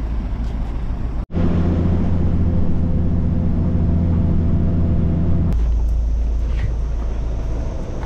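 Shuttle bus engine running, heard from inside the cabin as a steady low hum while riding. It is bracketed by the lower rumble of the bus beside the curb at the stop. The sound breaks off sharply for an instant about a second in.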